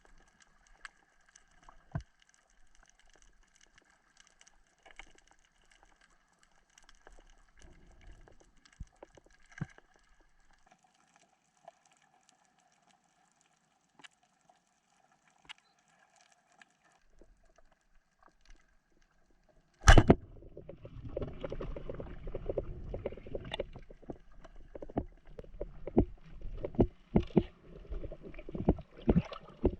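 Faint underwater ambience with scattered small clicks, then a sudden loud sharp knock about twenty seconds in, followed by splashing and bubbling water with many clicks.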